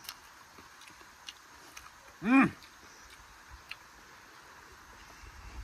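A person's single short voiced sound, like a brief "mm" or "ah", its pitch rising then falling, about two seconds in, over faint scattered clicks typical of eating.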